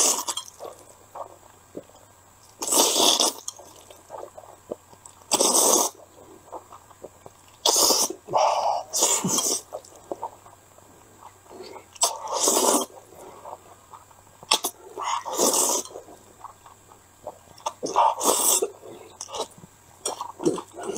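A person loudly slurping instant noodles, about eight slurps, each under a second, coming every two to three seconds with quieter stretches between.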